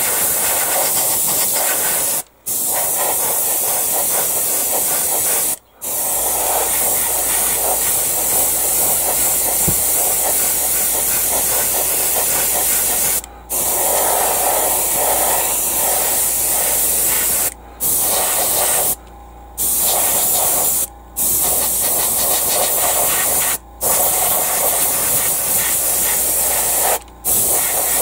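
Gravity-feed airbrush spraying grey paint: a steady hiss of air that stops briefly about eight times as the trigger is let off, then starts again.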